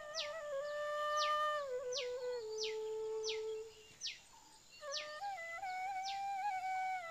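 A small flute-like wind instrument plays a slow, held melody that steps down in pitch, pauses about four seconds in, then picks up again. Over it a short, high, quickly falling chirp repeats about every two-thirds of a second.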